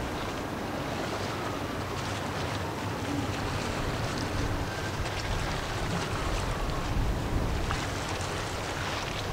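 Wind buffeting the microphone, with a steady rumble and a wash of water noise.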